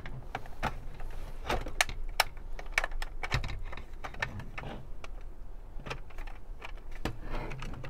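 Hard plastic parts of a JET CEDA foam-dart blaster clicking and knocking together irregularly as its shell is slid and pushed back over the internals during reassembly.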